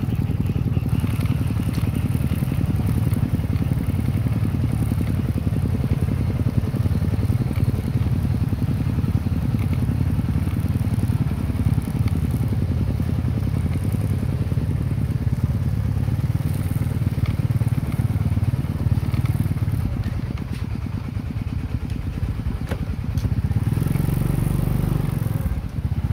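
Motorcycle engine running steadily on the move. It eases off a little about three-quarters of the way through and picks up again near the end.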